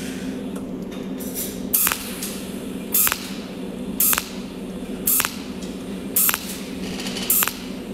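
Cold welding machine firing short arc pulses at the tungsten electrode, six brief hisses about a second apart. Each pulse lays one overlapping spot weld along a steel seam fed with filler wire. A steady hum runs underneath.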